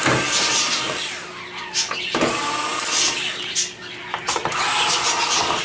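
Two cordless screwdrivers whirring in short spurts as they back out the screws holding the stand brackets to the TV's sheet-metal back, with a few sharp clicks from the bits and screws.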